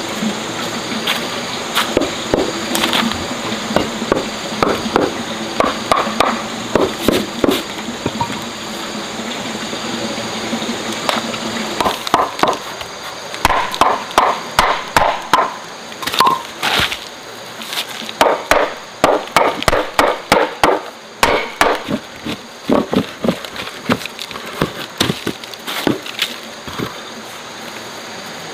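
A long series of sharp knocks, like chopping with a blade, sparse at first, then coming in quick runs of several strokes a second from about halfway in.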